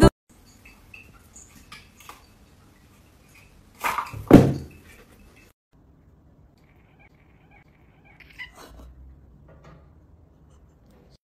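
A cat gives two quick cries about four seconds in, the second sliding down in pitch, with only faint small sounds around them.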